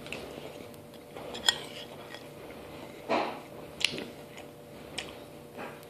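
A spoon clinking against a cereal bowl, with a few sharp clicks a second or so apart and a short scraping rustle between them.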